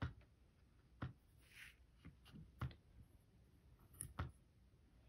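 A few faint, irregular clicks and soft knocks as a seashell's tip is pressed and rocked into firm clay on a work board.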